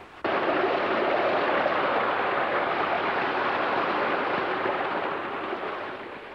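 Water of a shallow rocky stream rushing over stones: a steady, even rush that starts abruptly and fades away near the end.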